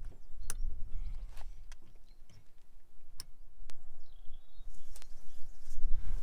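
Low wind rumble on the microphone, with scattered sharp clicks as cable and fittings are handled on aluminium roof mounting rails. A brief high chirp comes about four seconds in.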